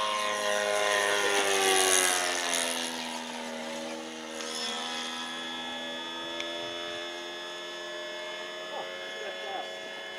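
RC model airplane flying past overhead, its motor and propeller making a pitched drone. The drone is loudest about two seconds in and falls in pitch over the first few seconds as the plane passes, then carries on at a steady pitch.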